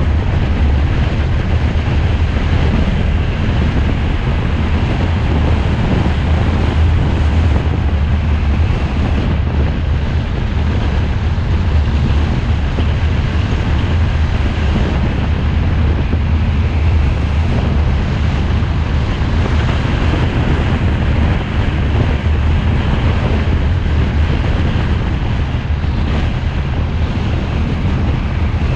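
A car driving along a road: steady road and wind noise with a deep, even rumble and no change in engine pitch.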